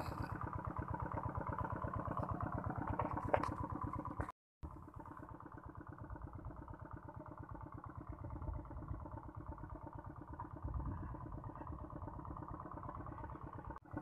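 A small engine running steadily with a fast, even putter, quieter after a brief dropout about four seconds in.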